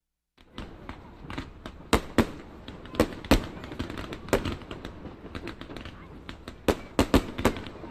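Fireworks going off: sharp bangs and pops at irregular intervals over a steady background rumble of crackle. The bangs come singly and in quick pairs and clusters, with the loudest about two, three and seven seconds in.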